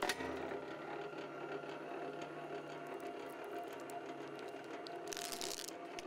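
BLUEROCK MWS-808PMO motorized wire stripper, its 1 HP electric motor and gear-driven cutter rollers running steadily, with a sharp click at the very start. A brief scraping hiss about five seconds in.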